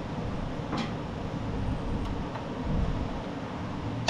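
Steady low background rumble, with a faint click about a second in and another near the middle as small mower drive-gear parts are fitted onto the shaft.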